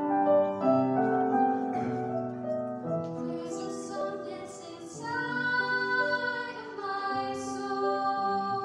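Girls' choir singing a slow song in several voice parts, with piano accompaniment.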